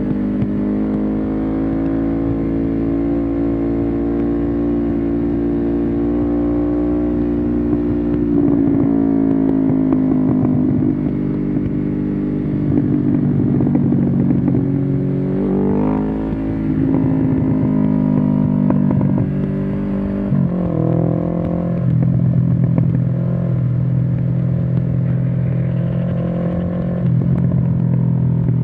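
1993 Suzuki GS500E's air-cooled parallel-twin engine, loud through a Takkoni slip-on exhaust with the dB killer removed, running on the move. It holds a steady cruise, the revs climb sharply about halfway through, then drop suddenly a few seconds later and settle at a lower, steady note.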